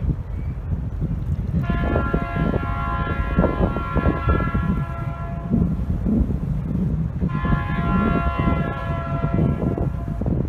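Diesel locomotive air horn sounding two long blasts about a second and a half apart, each a steady chord of several notes, over the heavy low rumble of the passing train.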